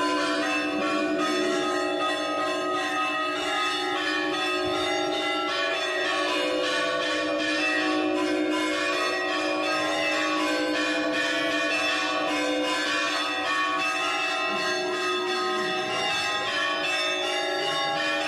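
Church bells rung as joy bells: a continuous peal of many overlapping bell tones, struck again and again without a pause.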